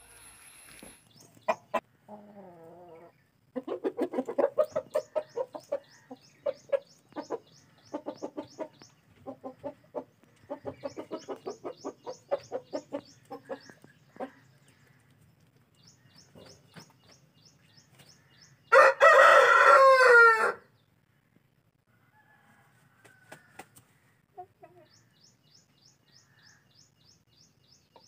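Parrot-beak aseel rooster clucking in rapid runs of short notes, then crowing once, about two-thirds of the way through: a short, loud crow that falls in pitch at its end.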